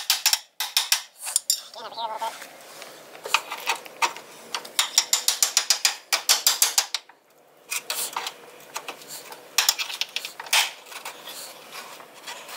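Hand socket ratchet clicking in several quick runs, with short pauses between them, as a bolt is turned.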